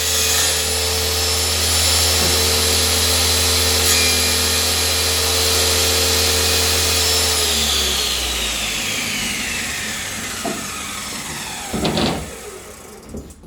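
Power saw running steadily, then switched off about seven seconds in and spinning down with a falling whine. A few knocks follow near the end.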